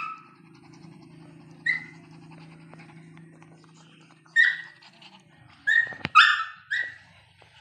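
A small dog yapping: short high-pitched barks, single and spaced out at first, then three or four in quick succession about six seconds in.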